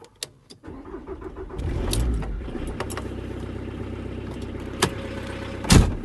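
VW T4 Transporter diesel engine started with the key after the glow plugs have preheated: a few clicks, then it cranks and catches about two seconds in and settles into a steady idle. A sharp knock near the end is the loudest sound.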